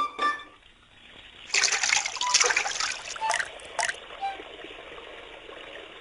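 A rush and splash of water that trails off into a steady trickle, with a few brief high blips over it.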